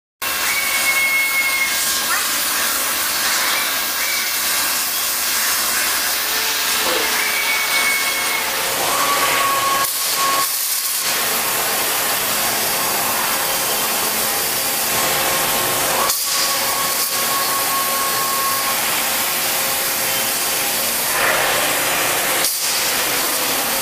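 Multi-head waterjet cutting machine's high-pressure water jets hissing steadily as they cut through metal sheet, with faint short whistles coming and going. The hiss breaks off briefly three times.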